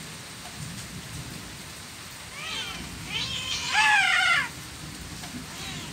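Cats meowing: two or three short rising-and-falling calls, then a louder, longer meow about four seconds in.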